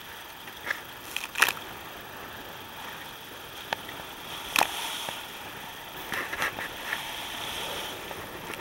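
Rough, choppy water splashing and slapping against the hull of a small boat, with sharp splashes about one and a half and four and a half seconds in and a cluster of smaller ones around six to seven seconds, over a steady hiss of wind and waves.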